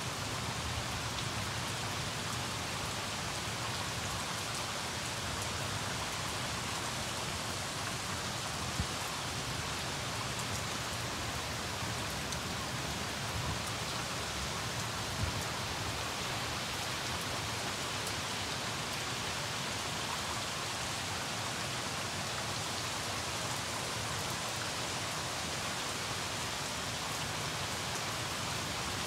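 Heavy rain pouring down steadily, with two faint brief ticks about nine and fifteen seconds in.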